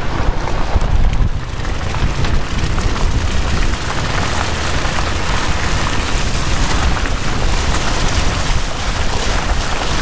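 Wind buffeting the microphone and tyre noise from a car driving over a wet dirt track, a steady loud rush and rumble, with wet sand and grit thrown off the front tyre.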